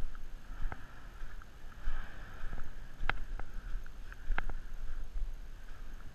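Steady low rumble and hiss of Mount Yasur's active crater venting, mixed with wind buffeting the microphone, with a few sharp clicks scattered through it.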